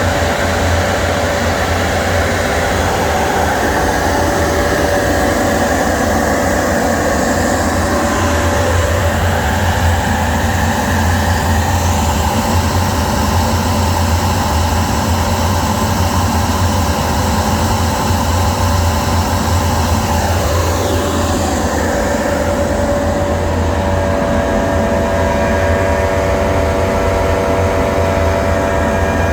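A 10-horsepower industrial dust collector running steadily: a loud, constant motor hum under the rush of its fan and air. Its tone shifts briefly about two-thirds of the way through.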